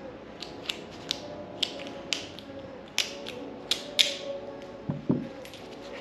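Small metal parts of a car door lock cylinder clicking and ticking as they are handled and fitted: a run of sharp, irregular clicks, with a dull knock about five seconds in.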